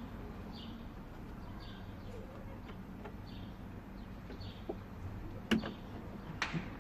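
Faint short high chirps repeating about once or twice a second over a steady low background hum, typical of a small bird calling, with a few sharp clicks near the end.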